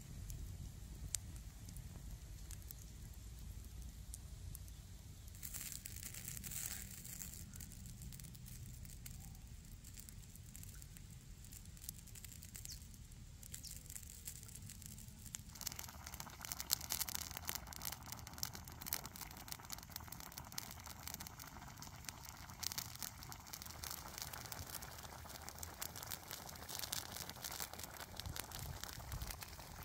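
Open wood cooking fire crackling, with irregular sharp pops; about halfway through a fuller, denser crackle and hiss sets in.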